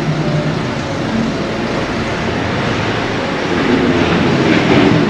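Steady city traffic noise from cars, with faint voices in the last second or so.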